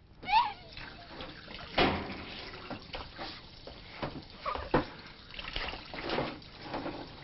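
Water splashing and trickling, with irregular knocks and clatter. A short pitched squeal just after the start is the loudest moment.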